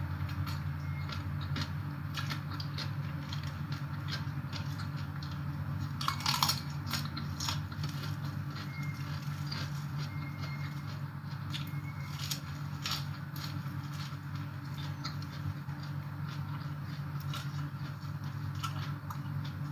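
A person eating papaya salad and raw vegetables by hand, with many small wet chewing and mouth clicks and a louder crunch-like burst about six seconds in. A steady low hum runs underneath.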